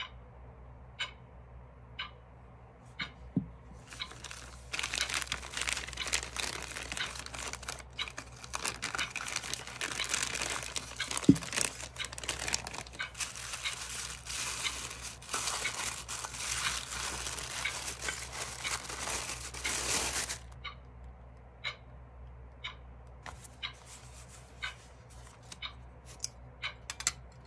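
Light taps and clicks of small objects handled on a tabletop. From a few seconds in comes a long stretch of crinkling and rustling as a small tray is unwrapped from its packaging, with one sharp snap in the middle. Scattered taps and clicks return for the last several seconds.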